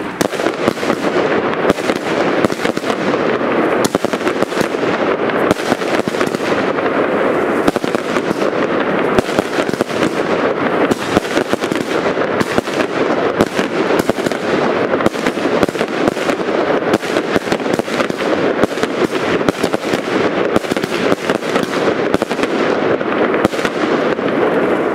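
Several Pyroweb Pyronator fireworks going off together: a loud, dense, unbroken crackle packed with rapid sharp pops. It dies away right at the end.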